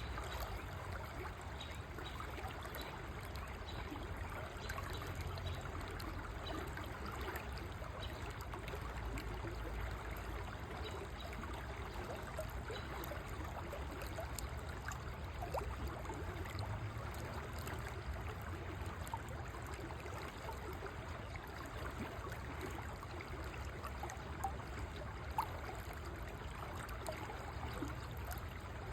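River water flowing and trickling steadily, with a low rumble underneath and a few brief sharp ticks, the strongest near the end.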